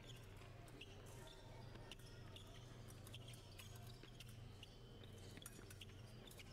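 Near silence: a faint steady low hum with a slow pulse and scattered faint clicks.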